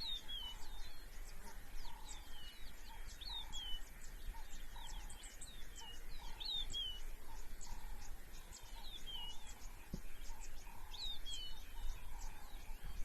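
A chorus of several wild birds calling: repeated short whistles that slide downward, quick high chirps, and a lower call repeating every half second or so, over a steady low rumble. There is a single brief click about ten seconds in.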